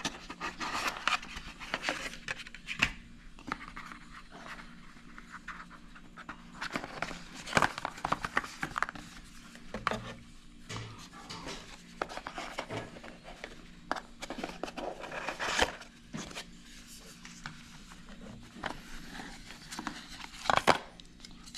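Parts and packing being taken out of a cardboard product box by hand: irregular rustling, scraping and light knocks, with a few sharper clicks.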